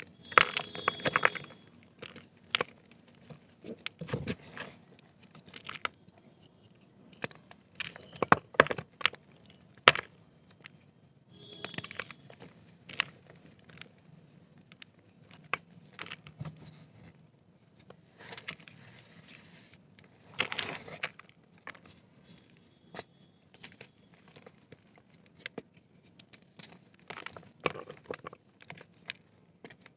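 Dry compressed black dirt crunching and crumbling, in irregular bursts of crackling with short quiet gaps between them. The loudest crunches come about a second in, around eight to ten seconds in, and again around twenty seconds in.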